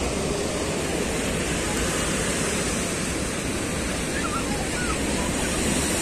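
Rough Mediterranean surf: high waves breaking and washing over the shore rocks and concrete blocks, a steady rushing wash.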